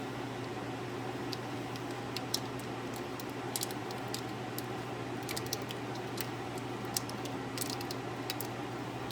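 Steady fan-like mechanical hum with a low drone, and scattered light clicks and ticks of small parts being handled.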